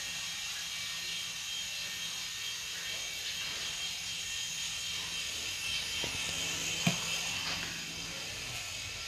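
Small 2.5-channel infrared RC toy helicopter's electric motors whining steadily as its rotors spin in flight, with one sharp knock about seven seconds in.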